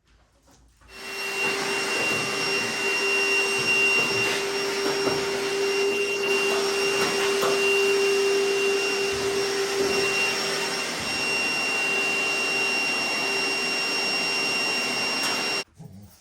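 A small high-speed motor running steadily with a constant whine over a rushing noise. It starts about a second in and cuts off suddenly near the end.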